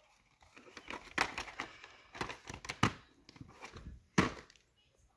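Plastic VHS cassettes and clamshell cases being handled: a scatter of short clacks and knocks with rustling in between, the sharpest near the middle and about four seconds in.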